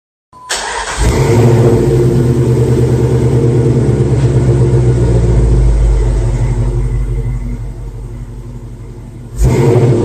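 Car engine running hard under acceleration. It cuts in suddenly just after the start, eases off gradually over the last few seconds, then surges loud again near the end.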